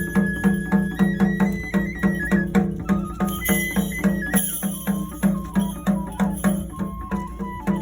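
Kagura festival music: a high flute holds and steps through a melody over a steady drum beat of about three strokes a second, with a high metallic clashing in places.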